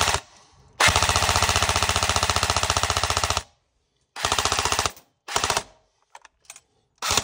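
East Crane M16A1 airsoft electric rifle firing on full auto: one long burst of about two and a half seconds, then shorter bursts, with a few single clicks in between.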